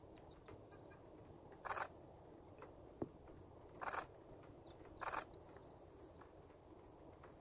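Three cell phone camera shutter clicks: about two seconds in, about four seconds in, and a second after that. Faint bird chirps sound between them over quiet open-air background.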